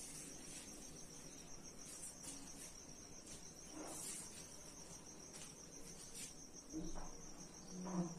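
Faint, steady, high-pitched insect trill, finely pulsing, with a few faint ticks.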